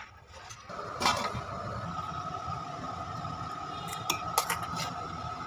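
A steel bowl and utensils clinking against a stainless steel cooking pot: one clink about a second in, then a few quick clinks near the end as the bowl is tapped against the pot while curd is added. A steady hum runs underneath.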